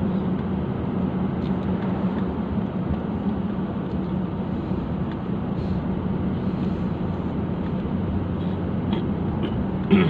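Steady drone of a car driving at road speed, heard inside the cabin: engine and tyre noise with a low hum.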